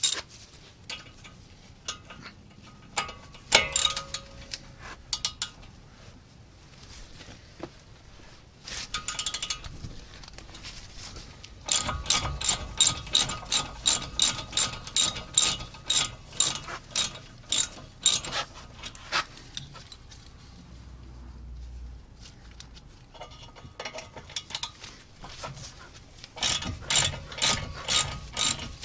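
Hand ratchet with a 7 mm hex bit clicking in quick runs, about four clicks a second, as it undoes a brake caliper's guide-pin bolts. There are two long runs, one in the middle and one near the end, with a few scattered taps before them.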